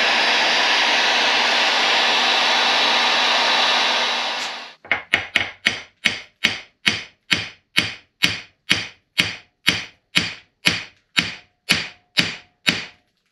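Electric heat gun blowing steadily on a steel wheel hub, cutting off after about four and a half seconds. Then a ball-pein hammer strikes the end of a seized drive shaft spline stuck in the heated hub about twenty times, roughly two blows a second, each with a short metallic ring, to drive the shaft free.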